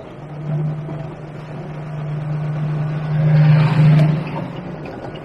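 Aixam Mega Multitruck van's small Kubota diesel engine with CVT drive, heard from inside the cab, running at a steady hum that gets louder about three seconds in as the van pulls along, with a rush of wet-road noise over it.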